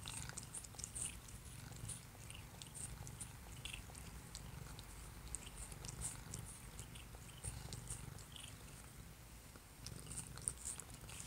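A cat purring close up, a steady low rumble, with many small wet clicks and smacks as it licks a person's lips and nose.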